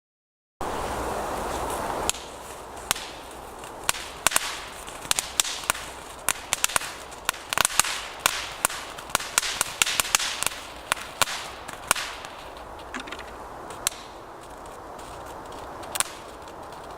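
Firework going off: a hiss of about a second and a half, then a long irregular string of sharp cracks that comes thick and fast in the middle and thins out to a few last pops.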